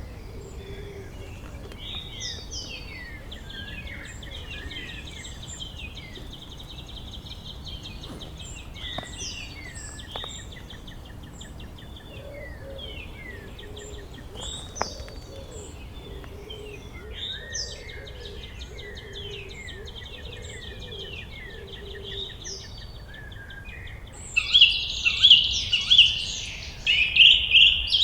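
A chorus of several wild birds chirping and whistling over a low outdoor rumble, with a steady high buzzing trill under the calls. From about 24 seconds in, a much louder, dense burst of close chirping takes over.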